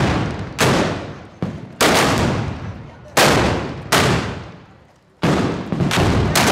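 Black-powder blunderbusses (trabucos) firing blank charges one after another: about seven irregularly spaced loud shots, each with a long echoing tail.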